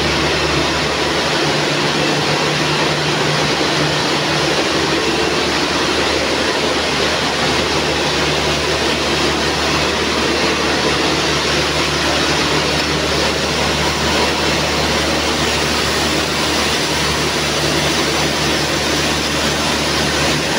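Industrial zipper coil sewing machinery running continuously: a steady, dense mechanical noise with a low motor hum under it.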